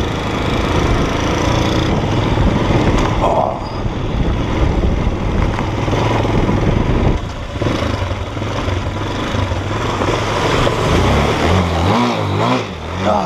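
Motorcycle engine running under load as the bike climbs a rocky dirt trail, with a continuous rushing noise. Near the end the engine speed rises and falls repeatedly as the bike goes through water on the track.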